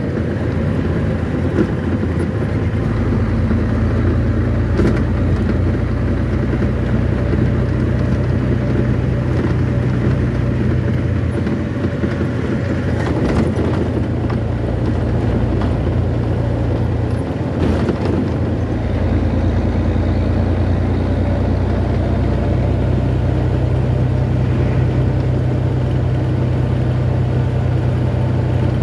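Steady engine hum and road noise heard from inside a moving vehicle cruising at speed, with a brief change in the engine note about 17 seconds in.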